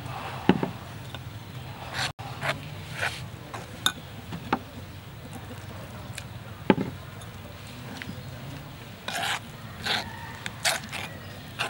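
A metal spoon clinking and scraping in a bowl as water is poured into flour and stirred into a batter, with scattered short knocks. Two sharper thuds, the loudest sounds, come about half a second and about seven seconds in.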